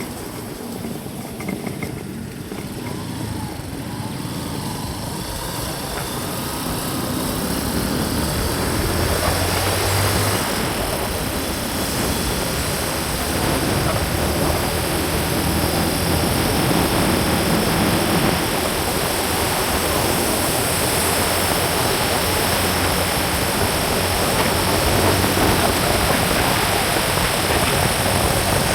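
Vehicle engine and road and wind noise while driving, growing louder over the first ten seconds as it picks up speed, then running steadily.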